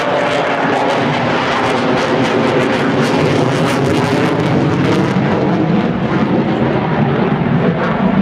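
Twin jet engines of an F/A-18 Super Hornet fighter in a flying display pass, running loud and crackling for the first five seconds. Beneath the crackle, a deep drone sinks slowly in pitch as the jet moves past.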